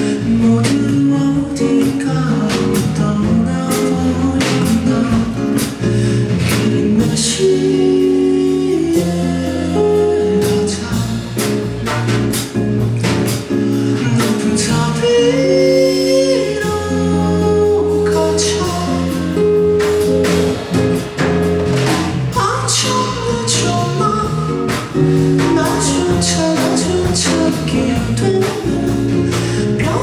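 Live male vocal sung into a microphone over acoustic guitar accompaniment: a slow, sustained melody with held notes over strummed chords.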